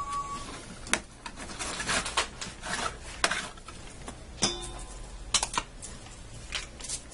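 A kitchen knife slicing raw chicken breasts on a metal sheet pan: irregular light clicks and taps as the blade meets the pan and the pieces are shifted around on it.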